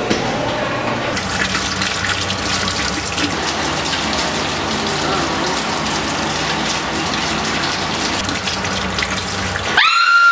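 Bathroom sink tap running steadily over hands being washed, starting about a second in. Just before the end the water sound cuts off and a sudden high tone rises and holds.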